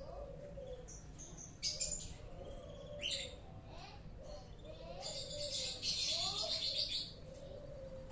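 Canaries chirping in short, high bursts, with a longer trilling phrase about five to seven seconds in.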